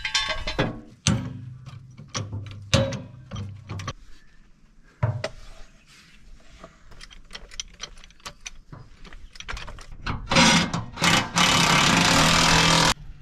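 Scattered knocks and clicks, then about ten seconds in a loud, steady machine noise starts, with a brief break soon after it begins.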